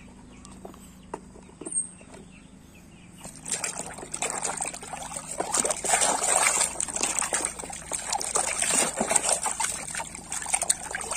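A hand swishing and scrubbing a plastic toy mask in a basin of foamy soapy water: light splashing and sloshing with the crackle of suds. It is faint for the first few seconds, then turns busier and louder about three seconds in.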